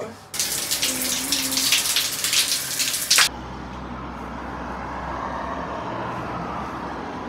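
Water running with a loud hiss for about three seconds, then an abrupt change to a quieter, steady rushing noise with a low hum underneath.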